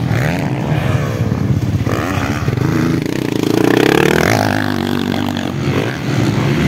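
Several motocross dirt bikes racing past, their engines revving up and falling back again and again as the riders work the throttle and shift, with one long rise in pitch about midway.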